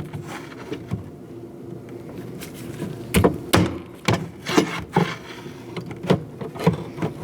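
Irregular sharp clicks and knocks of metal and plastic parts being worked inside a Chevrolet Colorado rear door: the latch linkage rod being freed from its lock clip and pushed out of the exterior door handle.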